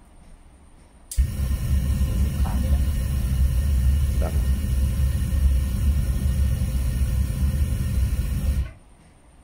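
Blade-hardening forge switched on to full blast about a second in: a loud, steady rush of air and fire with a deep rumble, which cuts off suddenly about seven and a half seconds later. A knife blade is being heated in it before the quench.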